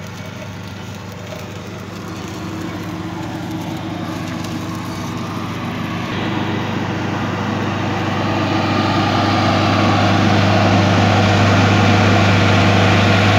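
Kubota diesel engine of a KOVO EW400DST engine-driven welder generator running at a steady speed. Its low hum grows louder over the first ten seconds or so, then holds.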